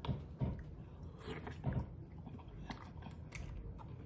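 Close-up eating sounds: wet chewing and biting of sauce-coated seafood boil food, with about half a dozen short smacks and crunches spread across the few seconds.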